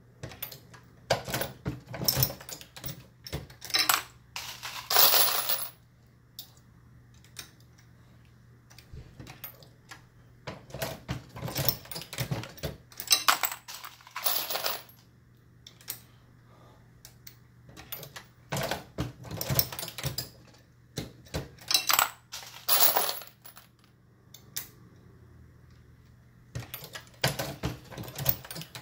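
Dillon RL550B progressive reloading press being worked through .223 rounds: metallic clinking of brass cases picked from a bin and set into the shell plate, with clacks of the press cycling. The clinking comes in bursts of a few seconds with short pauses between, over a faint steady hum.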